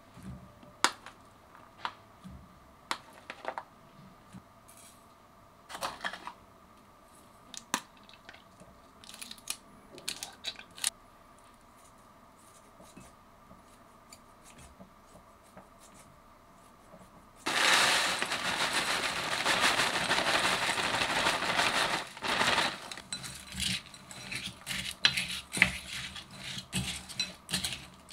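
Kitchen food-prep handling: a spoon taps and scrapes in a glass mixing bowl with scattered clinks. About two-thirds of the way through comes a loud stretch of about five seconds of plastic crinkling and rustling as a bag of shredded cheese is handled, followed by more clinks and scrapes as the filling is stirred.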